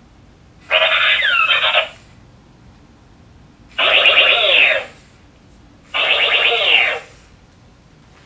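Vimpro RC Smart Robot's built-in speaker playing electronic robot sound effects in three bursts of about a second each, with sweeping pitches, as the toy responds to a hand waved in front of it under gesture control.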